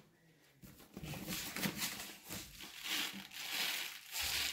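Plastic packet crinkling irregularly as it is handled and opened, louder near the end.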